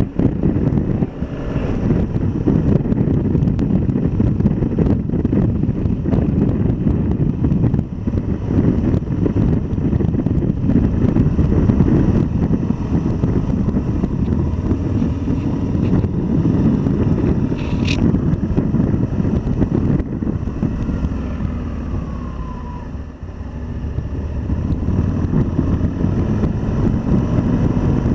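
Motorcycle riding along at low speed, its engine running under heavy wind buffeting on the bike-mounted microphone. About three quarters of the way through, the engine note falls and the sound dips as the bike slows, then picks up again. A brief high chirp comes about two thirds in.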